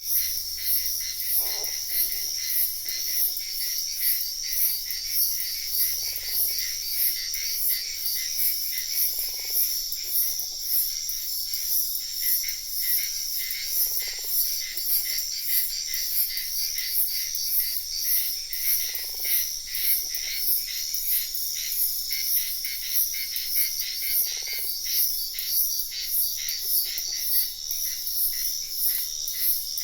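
Night chorus of insects, likely crickets, chirring in rapid, even pulses, with a frog croaking low about every four to five seconds, often twice in quick succession.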